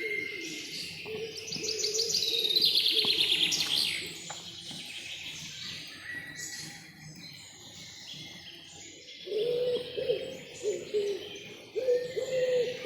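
Forest birdsong. A songbird sings a fast run of high notes falling in pitch about two seconds in, other birds chirp, and from about nine seconds a low hooting call repeats again and again.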